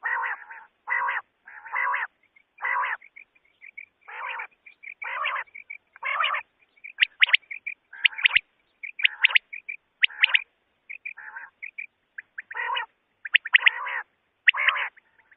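Common quail calling: a string of short, rough notes roughly one a second, with quick, sharp high notes in between that come in clusters from about halfway through.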